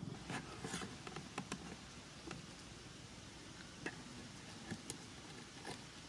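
Cardboard box and wooden prop stick being handled: faint scattered clicks, taps and rustles, about nine in six seconds, over a quiet low background.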